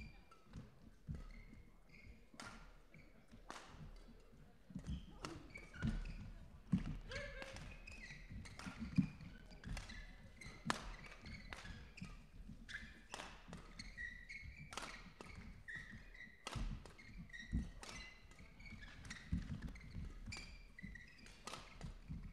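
Badminton rally: sharp racket hits on the shuttlecock, irregularly about once a second, with court shoes squeaking and feet thudding on the hall floor.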